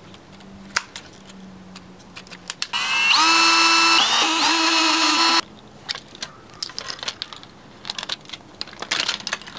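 Power drill running in two short back-to-back runs, each a whine that rises in pitch and then holds steady, as it backs screws out of a circuit board. Before and after it come small clicks and clinks of hand tools and parts being handled.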